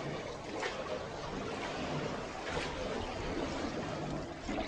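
River water lapping and splashing around a small foot-rowed boat, with a few faint splashes from the oar.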